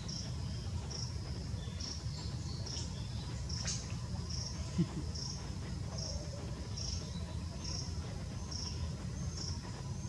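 Insect chirping steadily in the mangrove: short, high chirps repeated about once a second, over a faint low rumble.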